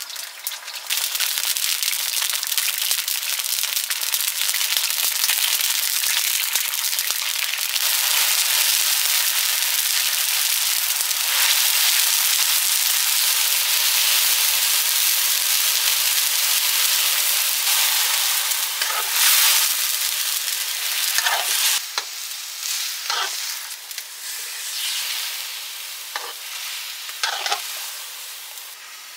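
Food sizzling in hot oil in a cooking pan. The sizzle starts suddenly about a second in and holds steady for some twenty seconds, then dies down into scattered pops and crackles as it fades near the end.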